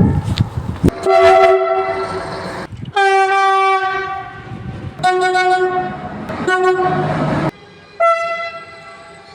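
Train horns sounding in about five separate held blasts in quick succession, each one a multi-note chord that starts and cuts off abruptly. The first second holds the rumble and clatter of a moving train.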